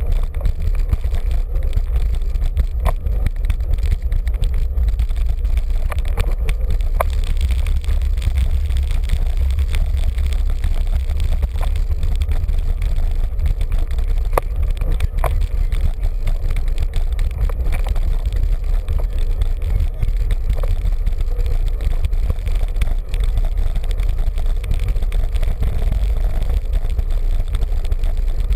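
Steady low wind rumble on the microphone of a camera riding on a moving bicycle, over tyre and road noise, with a few light clicks.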